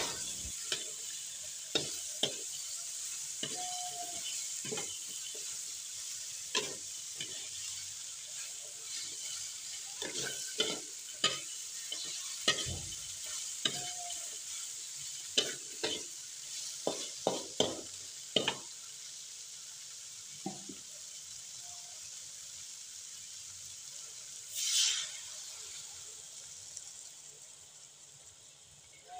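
Tofu and chayote pieces with spice paste sizzling in a stainless steel wok while a metal ladle stirs and scrapes them, with frequent short knocks of the ladle on the pan. Near the end a brief louder hiss swells up, and then the sizzle dies down.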